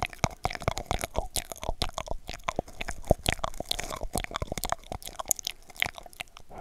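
Close-up mouth sounds, wet clicks and pops, made into a cardboard toilet paper tube held against the microphone, coming several times a second in an irregular run.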